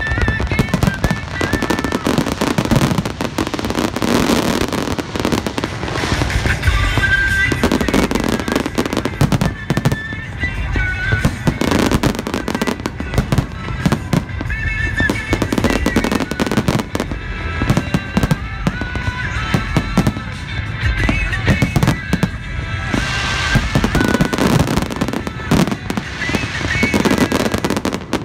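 A dense fireworks display: a rapid, unbroken run of bangs and crackles from many shells bursting at once.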